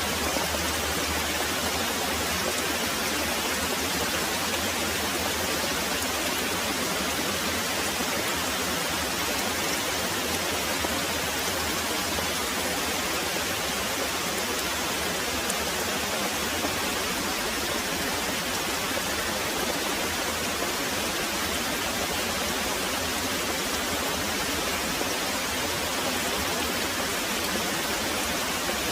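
Very heavy rain pouring steadily, an even hiss with no breaks or distinct drops standing out.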